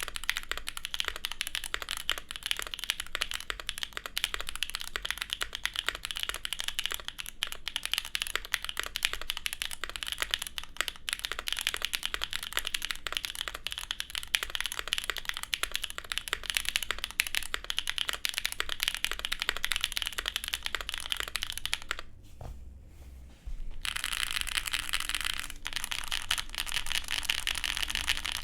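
Fast, continuous typing on a gasket-mounted custom mechanical keyboard with an aluminium plate, GMK keycaps and factory-lubed, reduced-travel Gateron Cream Soda switches. The keystrokes click in a dense patter, with a brief pause about three-quarters of the way through before the typing starts again.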